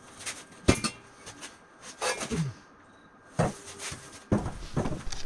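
Pieces of scrap steel clanking and knocking together as they are handled, about four separate knocks with a brief metallic ring.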